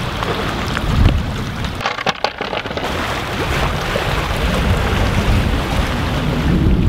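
Gusty wind buffeting the camera microphone with a low rumble, swelling about a second in, over lake water washing against the rocky shore.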